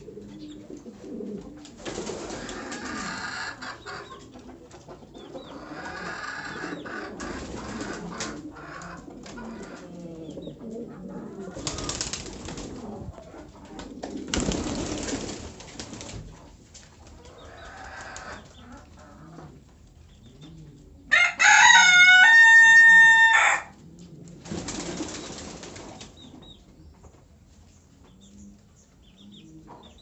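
King and French Mondain pigeons cooing low, with a few short noisy rustles. About two-thirds of the way through, a much louder held call steps up in pitch, lasts about two seconds and cuts off sharply.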